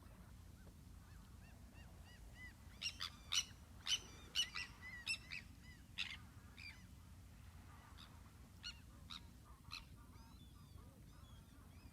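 Birds calling: a run of short, repeated calls, densest and loudest between about three and six seconds in, then sparser, over a faint steady low background.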